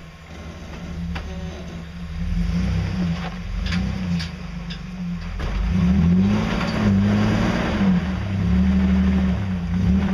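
Off-road vehicle's engine revving up and down as it crawls forward over rock under load, with a few sharp knocks near the middle.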